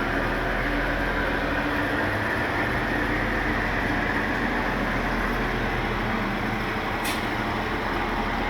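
Delivery truck's diesel engine running steadily, left on while the truck waits to leave. There is a brief hiss about seven seconds in.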